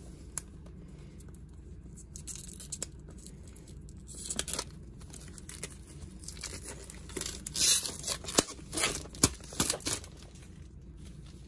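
Clear plastic shrink-wrap being torn and crinkled off a cardboard box: a few faint ticks, a short burst of crackle about four seconds in, then a run of sharp crackles as the wrap is peeled away near the end.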